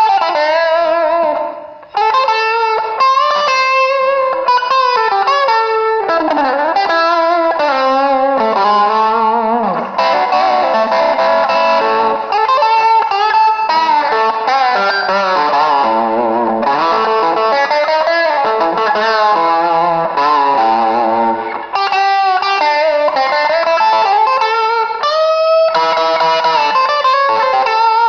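Maison Les Paul Custom electric guitar played through overdrive: a continuous lead melody of single notes with bends and slides, with a short break about two seconds in.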